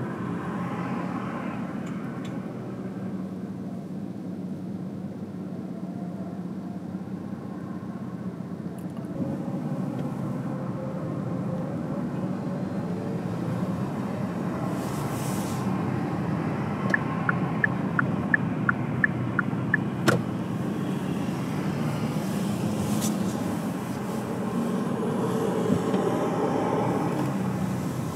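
A car driving along at road speed: a steady low rumble of engine and tyre noise. A little past the middle comes a short run of about eight quick, evenly spaced ticks, about three a second, followed by a single click.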